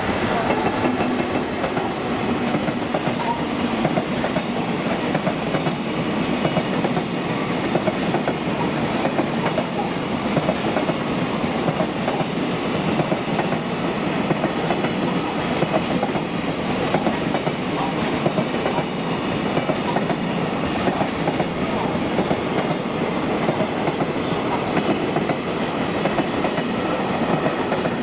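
A long freight train rolling steadily past, its wheels clattering over the rails without let-up.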